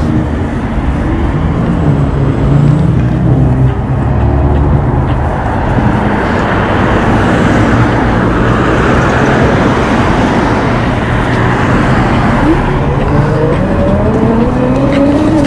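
Street traffic heard while riding an e-bike, with a steady rush of wind and road noise. Near the end a motor's pitch rises as a vehicle speeds up.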